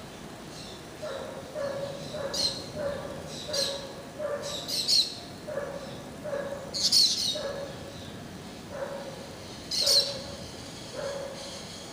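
Animals calling: a steady run of short, low calls about twice a second, with sharp, high bird calls breaking in five times as the loudest sounds.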